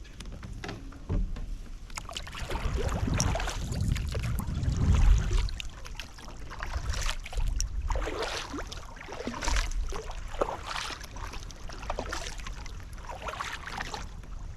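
Kayak paddle strokes: the paddle dipping and splashing in the water about once every second and a half, with low rumbling bumps in the first few seconds.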